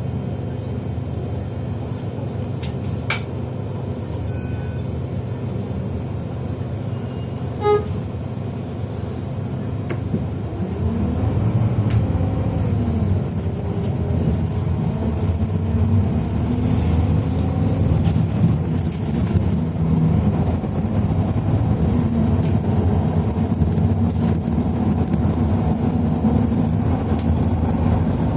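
Motor vehicle engine running with a steady low rumble, then picking up speed about ten seconds in, its pitch rising and the rumble growing louder. A short beep sounds just before the acceleration.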